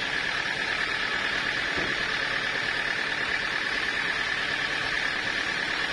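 Sawmill saw running steadily: a constant high whine over a wide, even hiss.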